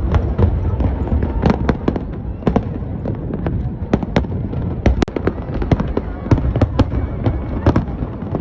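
Fireworks going off: a rapid, irregular run of sharp bangs and cracks over a continuous low rumble.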